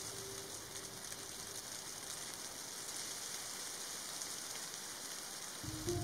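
Heavy snowfall making a steady, even hiss like light rain. A soft music note fades out in the first second or so, and music comes back in near the end.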